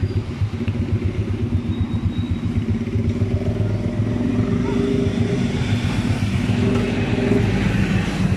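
A motorcycle engine running steadily with a fast, even beat, getting a little louder in the second half.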